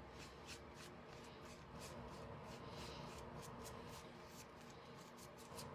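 Paintbrush stroking paint onto a flat wooden star cutout: faint, quick, scratchy brush strokes over a steady low hum.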